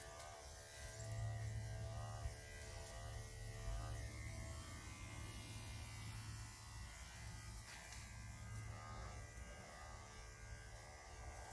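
Electric dog clippers running with a steady buzz as they are worked through a Great Pyrenees' thick coat.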